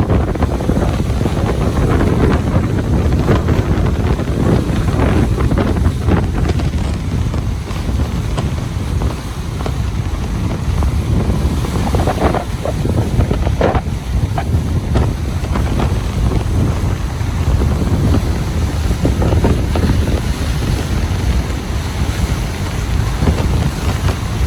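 Ocean surf breaking and washing on a beach in a steady roar, with heavy wind buffeting the microphone.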